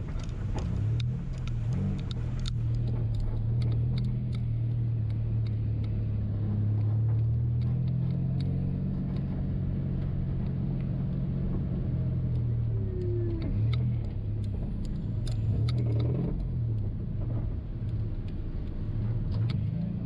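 2000 Subaru Impreza 3.0RS rally car's flat-six engine running at low, fairly steady revs, its pitch shifting slightly up and down a few times, with scattered light clicks and rattles.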